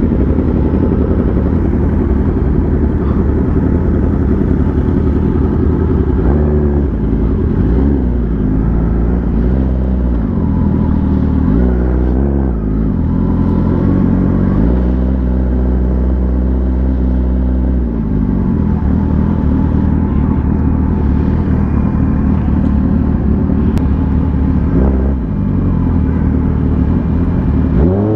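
Motorcycle engine running at low speed in town traffic, its pitch rising and falling several times as the throttle is opened and closed.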